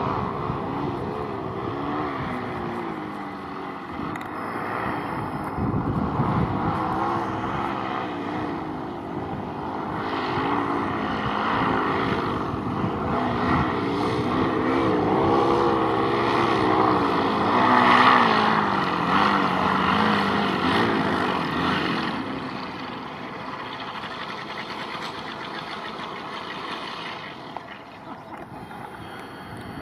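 A small engine droning, its pitch wavering up and down, over steady wind noise. It is loudest about 18 seconds in and fades after about 22 seconds.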